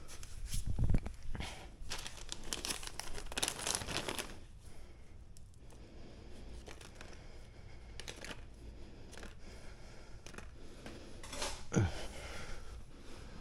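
Rustling, crinkling handling of plastic wiring and cut zip ties as the e-bike's cable loom is pulled apart, with a low knock about a second in and a short downward-sliding squeak near the end.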